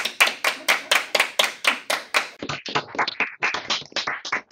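A few people clapping their hands in a steady run, about five claps a second. A little over two seconds in it changes to a thinner-sounding group clapping over a video call.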